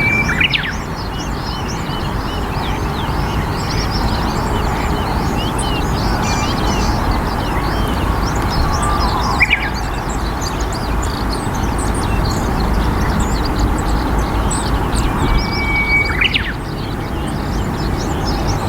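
Many small birds chirping and twittering over a steady low rush. Three times, just after the start, in the middle and near the end, a longer whistled bird call sounds, the first and last holding a level note and then dropping.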